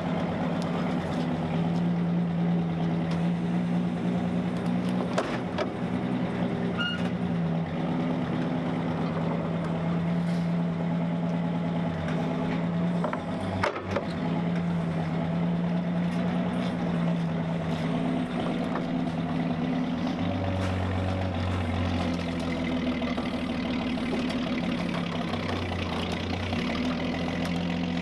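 Forklift engine running steadily under load while lifting a rolled-up tank track, its note stepping up and down and dropping lower about two-thirds of the way through. A single sharp knock comes about halfway through.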